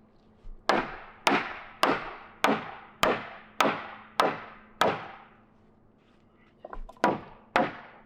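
Steady hammer blows striking wood while a wooden fence is being knocked apart, about one blow every 0.6 seconds. Eight blows, a short pause, then the hammering starts again near the end.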